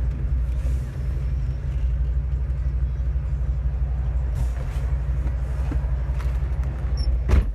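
2001 Ford Mustang with a new aftermarket exhaust, its engine running with a steady low rumble heard from inside the car. A single loud thump comes near the end.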